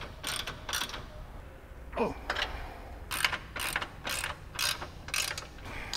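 Ratchet wrench with an 18 mm socket clicking in short runs of strokes as the radius rod mounting bolts are tightened, about two to three strokes a second in the second half. A short falling squeak about two seconds in.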